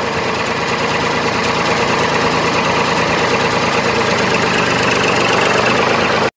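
A vehicle engine running steadily at one speed, then cutting off abruptly near the end.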